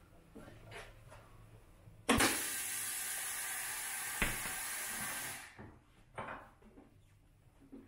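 Compressed air hissing loudly and steadily for about three seconds. It starts suddenly with a thump, has a sharp knock partway through, then dies away. Lighter knocks from handling the wheel come before and after.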